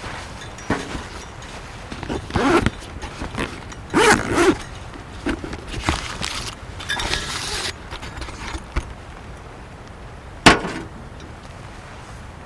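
Irregular rustling and handling noises, with a sharp knock about ten seconds in.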